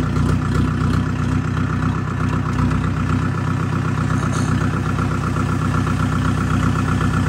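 Tractor engine running steadily at an even speed, with a fast regular pulse of firing.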